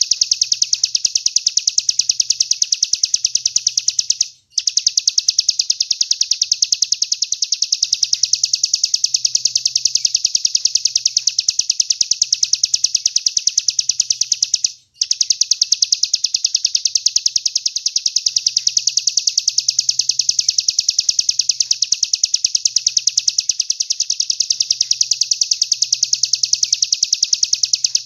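A caged songbird's recorded song, a continuous very rapid trill of repeated high notes used as a 'masteran' tutor call. It breaks off for a split second twice.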